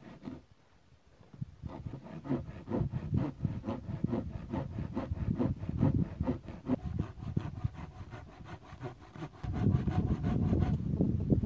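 A hand saw cutting through a dry, weathered log with steady back-and-forth strokes, growing louder about nine and a half seconds in.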